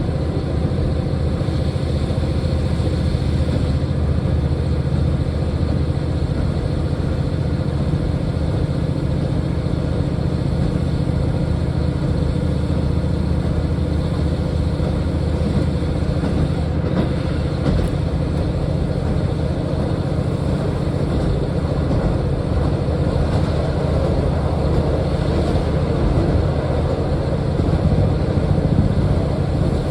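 Diesel train running steadily along the track: a continuous low engine drone with rolling noise over it.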